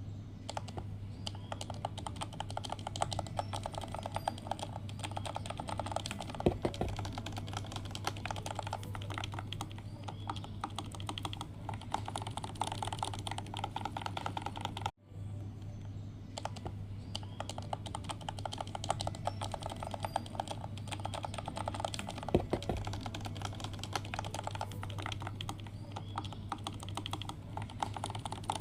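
Continuous fast typing on a CIY Tester 68 mechanical keyboard with linear Gateron Milky Yellow switches: a dense run of key clacks over a steady low hum, cut off for an instant about halfway through.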